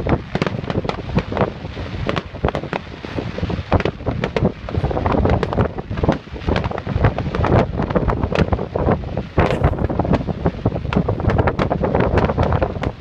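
Fireworks display: many sharp firework bangs in quick succession, over wind rumbling on the microphone.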